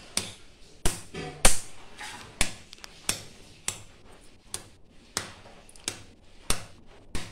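Hard-boiled egg tapped again and again on a hard kitchen counter to crack its shell for peeling: about eleven sharp taps, roughly one every half second.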